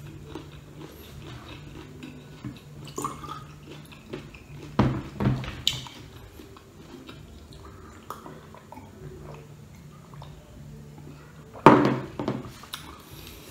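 Table sounds of eating and drinking: a few short gulps and clinks about five seconds in, and a glass of cold gulaman set down on the table with a knock near the end, the loudest sound. A faint steady hum from an electric fan lies underneath.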